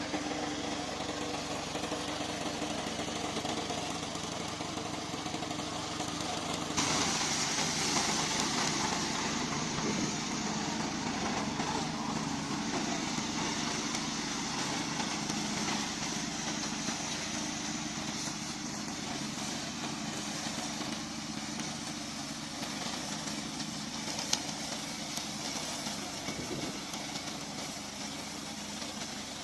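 Engine of a remote-control slope mower running steadily. About seven seconds in, the sound changes and turns louder and hissier.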